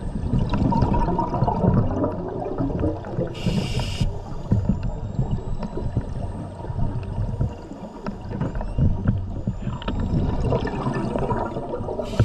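Scuba diver's regulator underwater: exhaled air bubbling out in two long rushes, with a short hiss of inhalation about three and a half seconds in.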